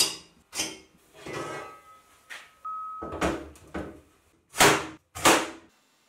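Metal workshop clatter: about eight sharp knocks and clanks as a steel square and steel square tubing are handled on a metal workbench, with a longer scrape about a second in and a short ringing tone near the middle. It stops suddenly just before the end.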